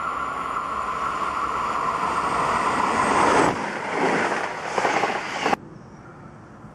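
Electric passenger train approaching fast with a steady whine and rising rush of wheel noise, then its coaches rushing past close by. About a second before the end the sound cuts off suddenly, leaving only a faint hiss of wind.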